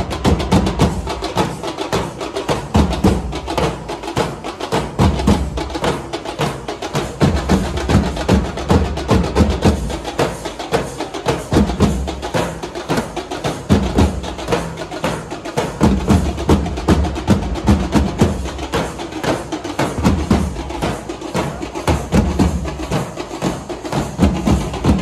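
Chenda drums in a Kerala temple percussion ensemble (chenda melam) played in fast, dense strokes, with heavier low beats swelling in every few seconds.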